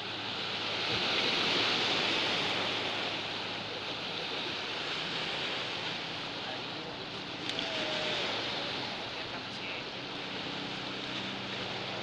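Small sea waves washing against the shore, a steady rushing noise that swells over the first few seconds. A faint click sounds about seven and a half seconds in.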